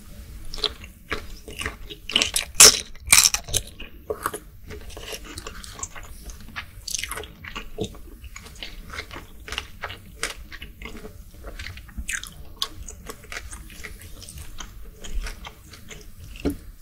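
Close-miked eating sounds: a bite into a cooked peeled shrimp, then chewing of its firm flesh, with many small wet clicks from the mouth. The loudest bites come about two to three seconds in.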